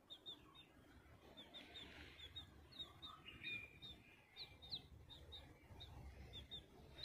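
Faint, repeated short high peeps of young chicks, a few a second.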